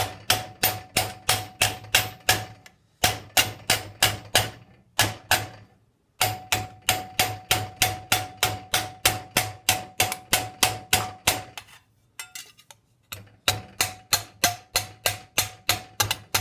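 Rubber mallet striking annealed 22-gauge stainless steel sheet over a steel forging stake, in rapid even blows about four or five a second, each with a short metallic ring. The blows come in runs broken by three brief pauses. They are forming the sheet's edge into a lip.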